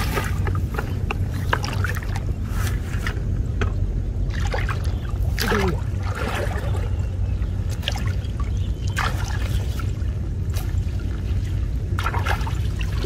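Water splashing and sloshing as a person wades in muddy floodwater and pulls a mesh fish-trap net through it: a dozen or so separate splashes over a steady low rumble.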